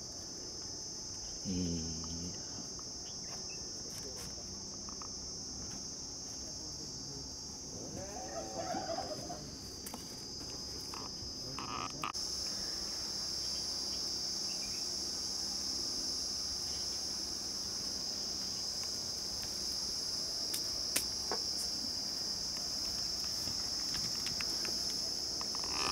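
Steady, high-pitched drone of an insect chorus, a little louder from about twelve seconds in.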